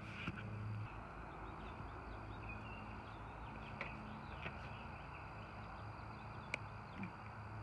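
Quiet outdoor ambience: faint bird chirps over a steady low hum and background hiss, with a few light clicks.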